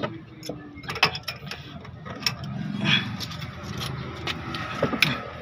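Hand tool turning a steering rack end (inner tie rod) loose from the steering rack: repeated metallic clicks and rattling as the tool grips and works the joint.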